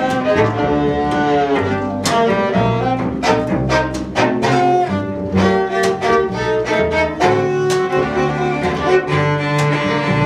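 String quartet of violin, viola, cello and double bass playing, with many short bowed notes and some held notes.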